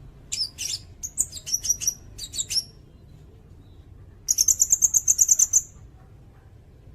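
A sirindet bird singing: a run of sharp, high chirping notes, then after a short pause a fast, even trill of about nine notes a second that lasts just over a second.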